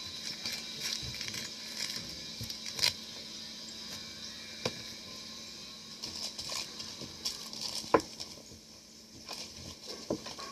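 Scattered clicks and light rustling as hands work on a surf leash's velcro cuff, with sharp clicks about three, five and eight seconds in over a steady faint hiss.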